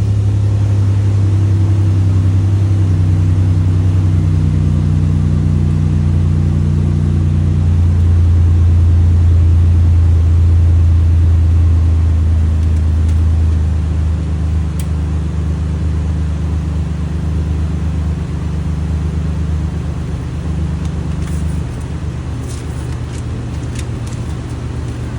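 2006 Chevrolet Impala engine idling steadily just after being started, its sound easing down a little about halfway through and again near the end. A few faint clicks near the end.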